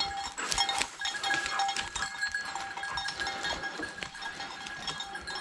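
A hunting dog's collar bell jingling and clanking irregularly as a German shorthaired pointer works through the undergrowth, with brush crackling around it.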